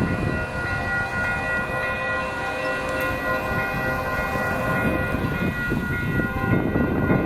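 Fouled locomotive air horn sounding one long, steady blast over the rumble of the train.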